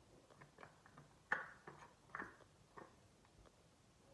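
Faint clicks and taps of a cosmetic jar and its lid being handled and opened, a few separate small clicks with the sharpest about a second and a half in.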